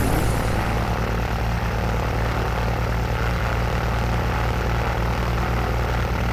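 Six-cylinder engine and propeller of a Cessna Skylane at takeoff power as the plane lifts off, a steady drone.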